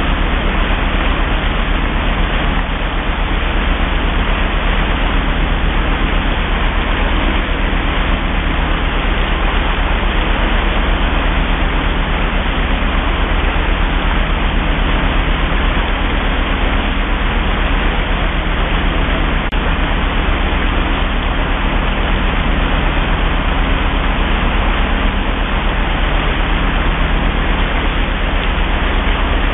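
Steady rushing of churned wake water from a vessel moving at survey speed, over an even low engine drone.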